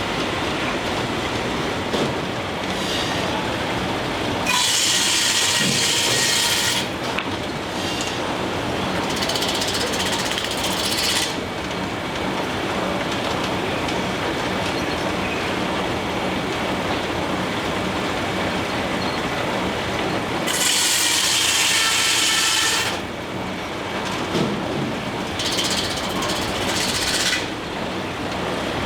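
Steam-engine-driven sawmill running steadily, with belts and shafts turning. Four bursts of high hissing, each about two seconds long, come over the top.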